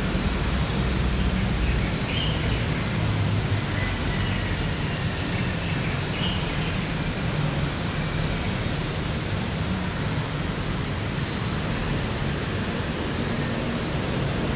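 Steady, even hiss with a low hum beneath it: constant background room noise. The brush on the paper is not distinctly heard over it.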